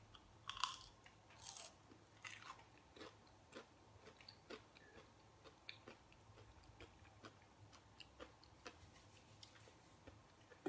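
A person biting and chewing a fried, breaded Doritos Loaded jalapeño-and-cheese bite. It is faint, with a few crisp crunches in the first couple of seconds, then lighter chewing clicks several times a second.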